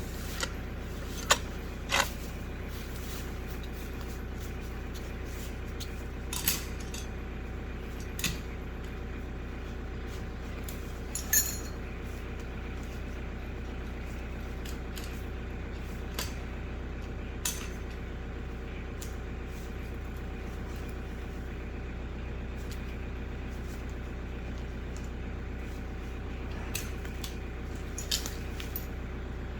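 Kioti diesel tractor engine running steadily, with scattered sharp metallic clinks and clanks over it, the loudest ones a little over a second in, around eleven seconds in, and near the end.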